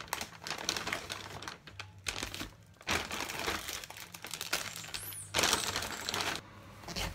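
Plastic food packet crinkling and rustling in several bouts with short pauses as it is torn open and handled.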